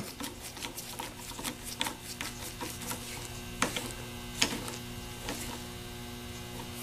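Light, irregular clicking of a nut driver turning an 8-32 brush screw down onto the brush holder of a Delco 37MT starter, with two slightly louder clicks about three and a half and four and a half seconds in, over a steady background hum.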